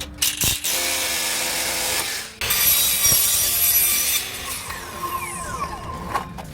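Tool work cutting or sawing: two loud stretches of rasping noise with a short break between them, then quieter scraping with a few falling squeals.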